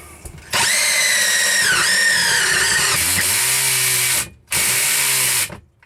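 A roughly 15-year-old cordless drill runs in two bursts, a long one and then a short one. Its whine sags in pitch partway through the first burst as the bit bogs down, failing to bore through the pontoon boat's floor.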